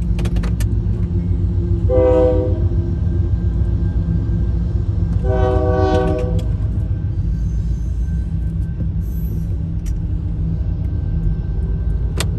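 Union Pacific diesel freight locomotive's air horn sounding twice at a grade crossing, a short blast about two seconds in and a longer blast a few seconds later, over the steady low rumble of the passing freight train.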